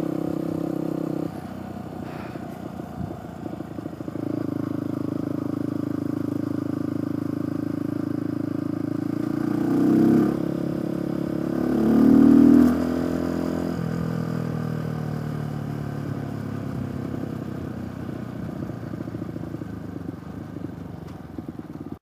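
Beta RR 125 supermoto's single-cylinder engine running under way, heard from the rider's position. The throttle eases off about a second in and picks up again around four seconds; in the middle the revs climb in two short rising surges, then the engine settles lower and quieter toward the end.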